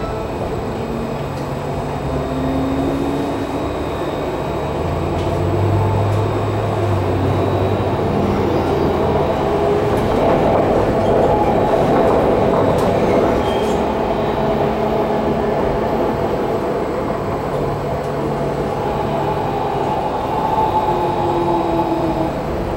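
Alstom Citadis 302 low-floor tram running along the track, heard from inside the passenger saloon: a steady rolling noise of wheels on rail with faint tones that glide up and down in pitch. It grows louder about halfway through, then eases off again.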